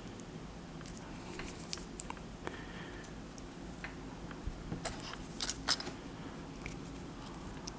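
Faint handling noise from a small lithium-polymer battery pack and its wire lead being turned over in the fingers above an opened PDA: scattered small clicks and taps, with a cluster of them about five to six seconds in.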